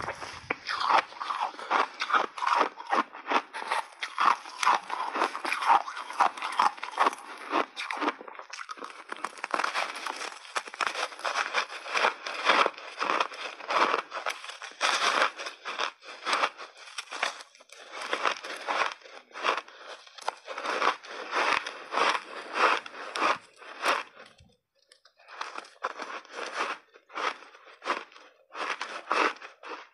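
Close-miked crunching and chewing of frozen purple block ice coated in thick milk powder, taken in big bites. It is a rapid, continuous run of crisp crunches with a brief pause about five seconds before the end.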